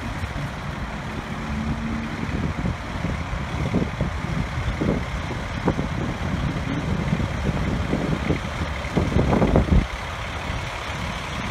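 Fire engine's diesel engine idling with a steady rumble, with a short louder burst of low rumbling about nine seconds in.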